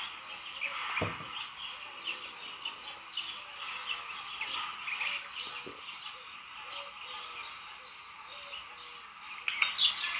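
Many small birds chirping and twittering continuously in a dense chorus, with a short low thump about a second in and again about halfway through.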